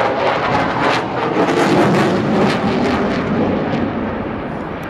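A fixed-wing aircraft flying past, its engine noise loud and steady.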